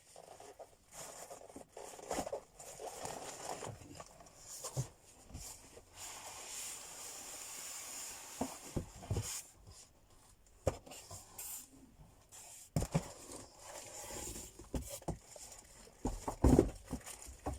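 Packaging being handled: plastic and paper rustling and crinkling, with irregular clicks and knocks of small parts being picked up and set down, and one louder knock near the end.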